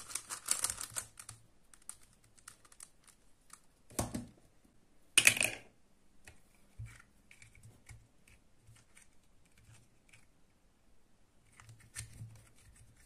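Plastic twisty puzzle being turned by hand: a dense run of quick clicking turns of a dodecahedron-shaped puzzle for the first second and a half. A knock about four seconds in and a louder plastic clatter about a second later follow, then sparse light clicks of handling.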